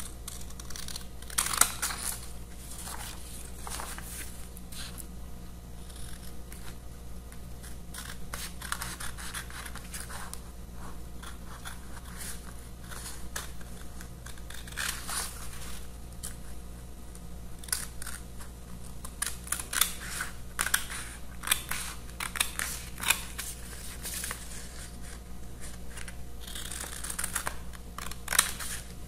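Scissors cutting through a paper sewing pattern: short snips in irregular runs, with brief pauses between them.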